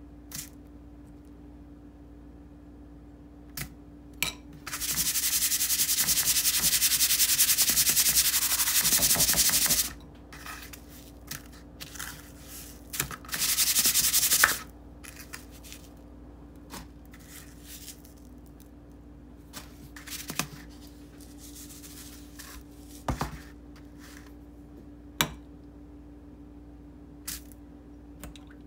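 Breadcrumbs being pressed and rubbed by hand onto egg-dipped perch fillets on a paper plate: a loud, gritty rubbing that lasts about five seconds, then a shorter spell of it a few seconds later, with scattered light taps and clicks in between.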